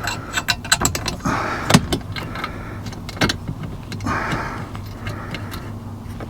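Clicks, taps and small metallic rattles of screws and hand tools, with short scrapes of plastic dashboard trim being handled and fitted back in place.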